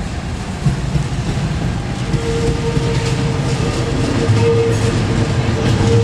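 KRL commuter electric train (ex-JR 205 series) moving slowly through the station yard while shunting, with a steady low rumble of wheels on rail. A steady whine joins in about two seconds in and holds to the end.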